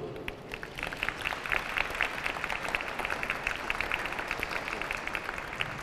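Audience applauding, many separate claps in a steady patter.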